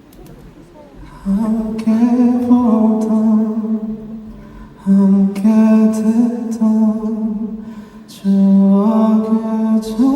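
A male voice singing a slow, wordless melody in three held phrases over soft live accompaniment, entering after a quiet opening second.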